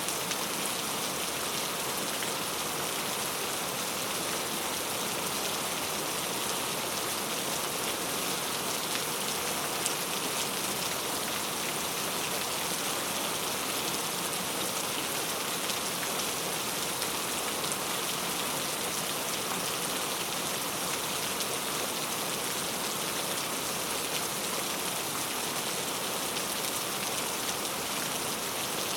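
Heavy rain falling steadily, a dense even hiss of drops with a few faint separate ticks of individual drops.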